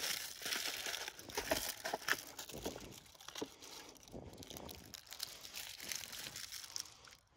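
Crinkling, rustling handling noise made of many small crackles, busiest in the first couple of seconds and then thinning out, ending abruptly.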